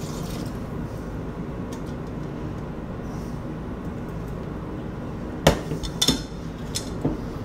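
Used deep-fryer oil pouring quietly from a metal fryer pot into a paper filter cone, with two sharp clinks near the end as the pot knocks against the wire filter stand and glass jug, then a few lighter clicks.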